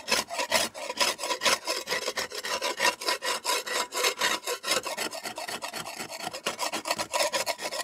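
Long-handled debarking spade scraping thick layers of old lime off the plastered infill panel of a half-timbered wall, in quick repeated rasping strokes several times a second.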